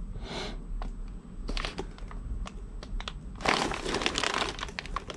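Packaging crinkling and crackling as a small cardboard retail box is handled and turned over above bubble wrap, with scattered clicks and a denser stretch of crackling about three and a half seconds in.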